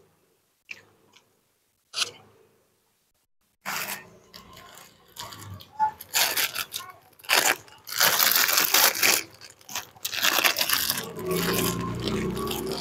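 Thin plastic bag crinkling and rustling in irregular bursts as it is pulled open and handled around a portion of sticky rice, starting about four seconds in. Before that, a few soft clicks of chewing.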